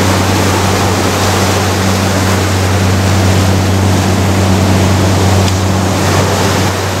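Ocean surf breaking and washing up on a sand-and-rock beach: a loud, steady rush of noise, with a steady low hum underneath.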